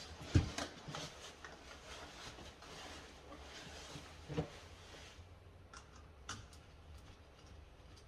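Light clicks, rubs and small knocks of hands working a wall switch and its wires, with a sharper knock about half a second in and a few more spaced clicks later.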